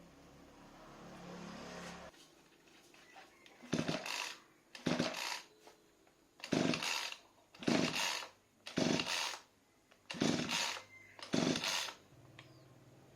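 Lawn mower engine being pull-started seven times in a row, each yank of the recoil cord giving a short burst of cranking noise that dies away without the engine catching: it won't start, with the carburetor clogged.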